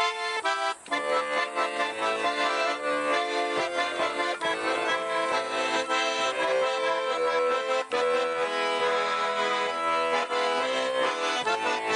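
Instrumental background music with held chords and quickly changing notes, starting abruptly.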